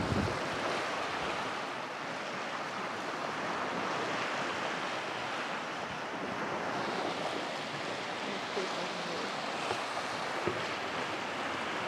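Steady wash of small waves lapping at the water's edge, with some wind on the microphone.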